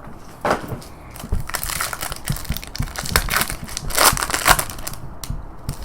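Plastic wrapping crinkling and packaging being handled as a box of trading cards is torn open, a run of irregular crackles and rustles.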